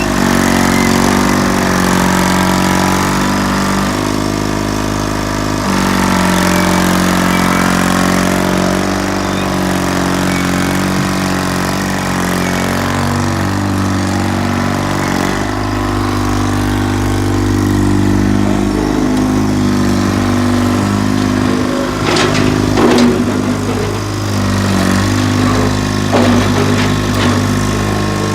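John Deere 440 crawler's General Motors diesel engine running, its speed changing several times in the first half. A few metallic clanks come in the second half.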